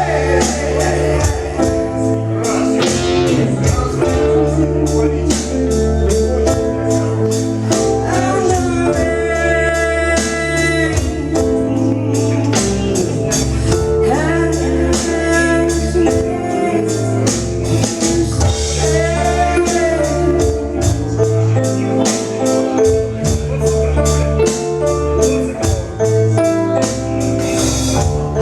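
Music: a song with singing phrases over sustained instrumental chords and a steady tambourine beat.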